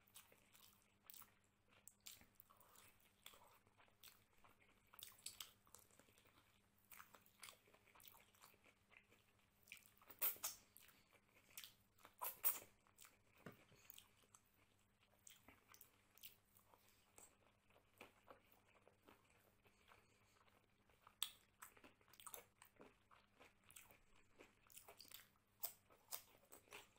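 Close-miked eating sounds of a person eating mutton curry and rice by hand: chewing, wet mouth smacks and crunchy bites, with fingers working the rice on the plate. The loudest bites come about ten and twelve seconds in.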